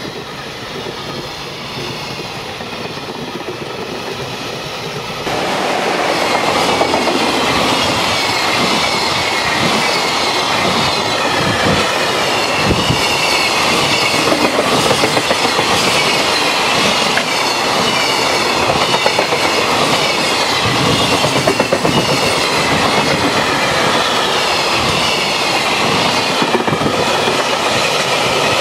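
A long freight train of container flatcars rolling past close by: a steady rush of steel wheels on the rails with a rhythmic clickety-clack as the wagons' wheels cross the rail joints. It gets abruptly louder and closer about five seconds in.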